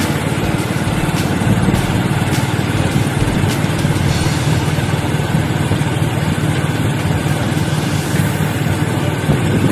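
Engine of a moving vehicle running steadily, with a low rough hum and road and wind noise.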